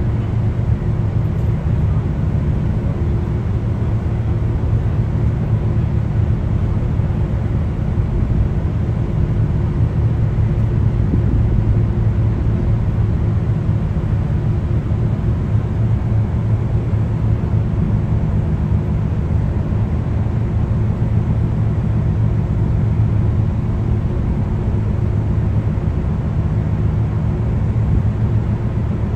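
Steady low engine drone with a constant hum, holding the same pitch and level throughout.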